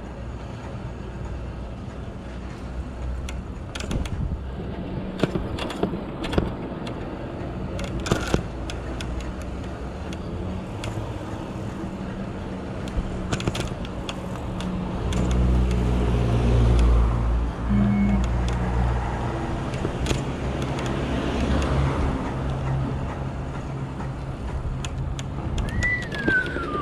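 Street noise heard from a moving e-bike: a steady road and wind rumble with scattered sharp clicks and rattles. A motor vehicle's engine rumble grows louder about halfway through and lasts for several seconds.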